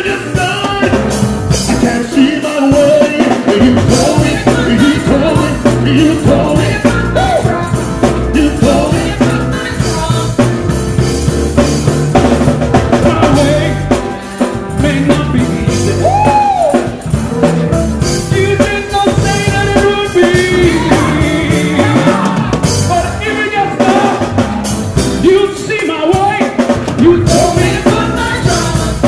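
Live gospel music: a choir singing over a drum kit and band accompaniment.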